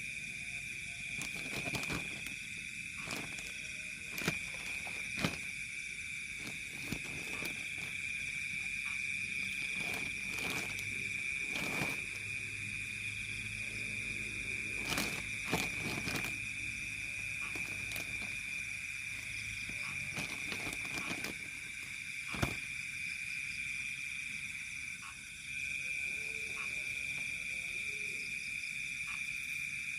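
Nocturnal insect chorus at the waterside: a steady, unbroken high-pitched drone. Scattered sharp clicks sound over it.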